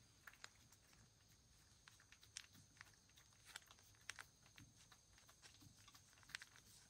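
A cat licking and eating a treat from a shallow wooden dish: faint, irregular clicks and smacks of its mouth and tongue, a few a second.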